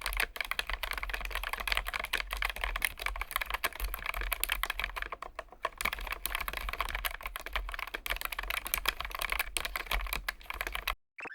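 Fast, continuous typing on a Keychron K1 Max low-profile mechanical keyboard, a dense run of rapid key clicks that stops abruptly near the end.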